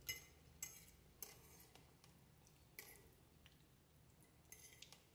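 Cutlery clinking lightly against a plate while eating spaghetti: about half a dozen faint, short clinks spaced unevenly.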